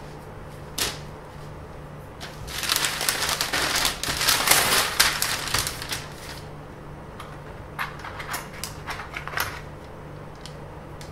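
Handling noise of a large paper sheet and a plastic flexible curve ruler being laid on it: one click, then a few seconds of dense rustling and crackling, then a scatter of light clicks and taps. A low steady hum runs underneath.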